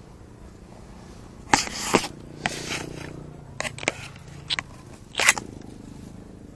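Close rustling and crackling handling noise: a run of short, sharp bursts from about one and a half to five and a half seconds in, as something crumpled is handled among dry bamboo leaves and grass.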